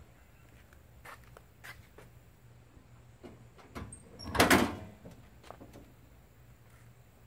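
The hood of a 1956 Chevrolet 3100 pickup being released and swung open: one short, loud metallic clunk and rattle about four seconds in, after a few faint taps.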